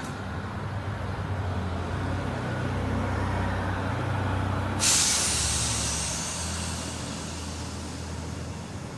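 Road traffic with a heavy vehicle's engine running low and growing louder, then a sudden loud air-brake hiss about five seconds in that fades over a couple of seconds.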